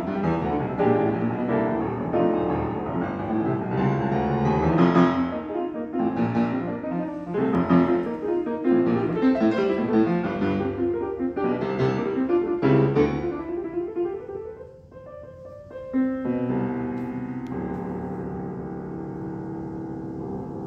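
Steinway Model B grand piano played fast and full, with loud accented chords. After a brief quieter moment, a chord is struck about three quarters of the way through and left ringing, slowly fading.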